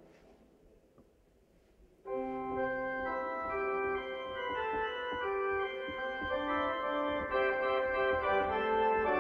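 Organ music. A held chord fades almost to nothing, then about two seconds in the organ comes in loudly with sustained full chords that change every second or so.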